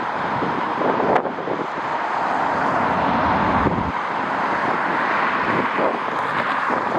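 Strong gusting wind buffeting the microphone, over a steady rushing noise, with a sharp click about a second in.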